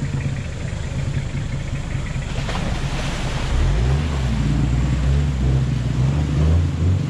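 A 4x4 pickup's engine running under load as it drives down a steep bank into a river, with water sloshing around it. About halfway through the engine gets louder and its note drops deeper.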